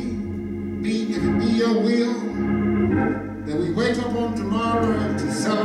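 Church organ playing sustained chords.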